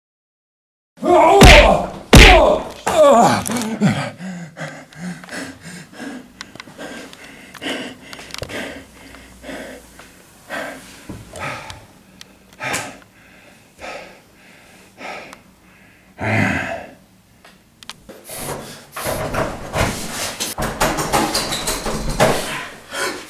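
Thuds, knocks and a slam from a staged scuffle, with brief shouting and loud hits about a second in, then scattered bumps and knocks.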